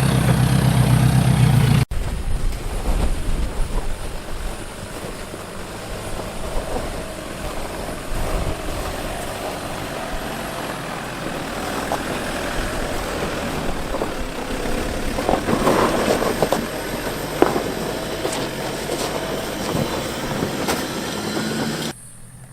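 Off-road 4x4's engine running at low revs while crawling a rocky obstacle, with scattered knocks. The sound cuts abruptly about two seconds in and drops again near the end.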